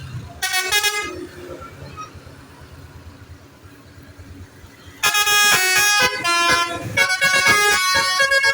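Bus telolet horn of the basuri multi-tone type: a short two-note blast about half a second in, then from about five seconds a loud run of quickly changing horn notes playing a melody.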